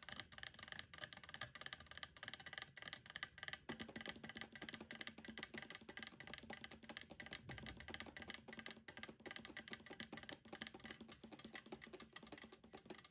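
Very fast fingernail tapping, a dense stream of light clicks with no pauses. The taps take on a lower, fuller tone about four seconds in.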